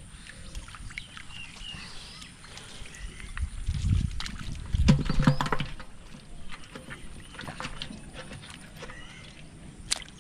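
Hands splashing and sloshing in shallow, muddy water while groping through the grass for fish, in irregular surges that are loudest about four to five seconds in.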